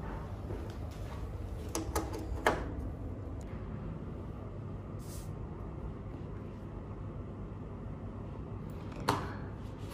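A few short clicks and knocks about two seconds in as a USB card reader with a TF card is plugged into a desktop computer's USB port, over a steady low hum; one more click near the end.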